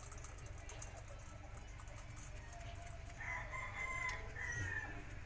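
A rooster crowing once, about three seconds in, a pitched call lasting about a second and a half that falls away at the end.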